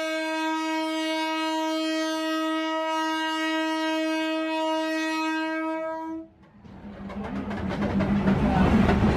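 Train horn of a diesel railcar on the Maeklong line, one long steady note held for about six seconds as the train edges into the market, then cutting off. After it, the rumble of the train passing close by swells.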